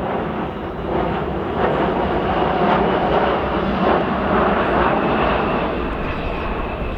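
KC-135R Stratotanker's four CFM F108 turbofan engines running as it passes. The noise swells through the middle and then eases, with a thin steady whine above it.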